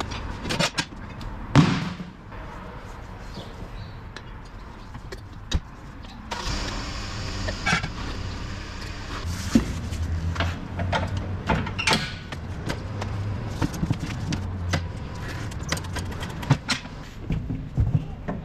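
Trailer tire and wheel work: scattered sharp clanks and knocks over a low steady hum, with a steady hissing noise joining about six seconds in.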